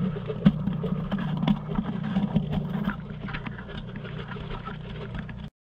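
Wet salt slurry being added over bluegill in a plastic 5-gallon bucket: scattered short clicks over a steady low hum, which cuts off suddenly near the end.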